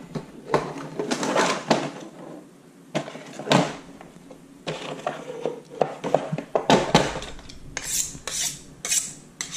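Plastic fillet-knife case unlatched and opened, with clicks and the knives rattling in their hard plastic tray. From about eight seconds in, a fillet knife is stroked quickly against a sharpening steel, about three scraping strokes a second.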